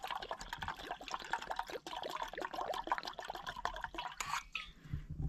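Water being poured into a small pot, splashing and gurgling, tapering off about four seconds in.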